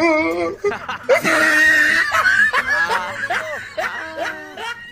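Men laughing and hooting loudly over a small fish just caught, with a louder, harsher shout about a second in.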